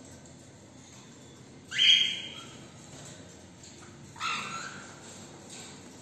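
Cockatiels squawking: two sudden harsh screeches, a loud one about two seconds in and a second one about four seconds in, over faint short chirps.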